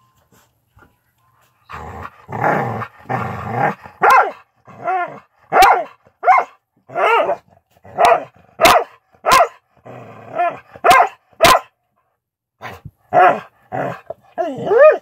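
A playful dog vocalising: a low growl begins about two seconds in, then gives way to a run of short, pitched barks and yips, roughly two a second, with a few sharp clicks among them.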